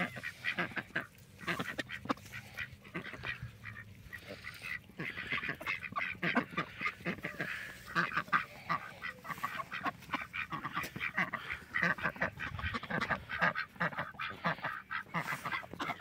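A small group of domestic ducks quacking and chattering, many short calls in quick, overlapping succession.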